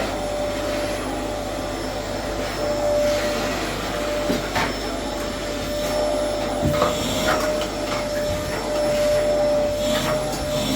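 A motor running steadily with a constant whine, with a few short knocks over it.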